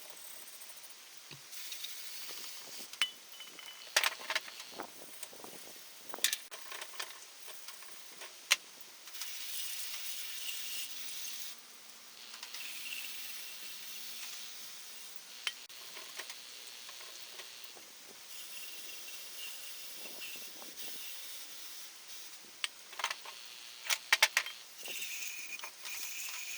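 Scattered sharp clicks and knocks, bunched in three spells, over a steady hiss, with a thin high whine that comes and goes several times.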